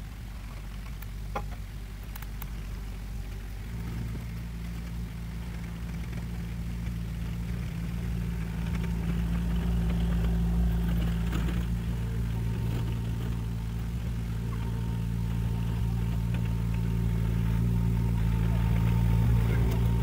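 Old, high-hour mini excavator's diesel engine running as the machine tracks toward the camera. The engine steps up in speed about four seconds in and grows steadily louder as the machine comes closer.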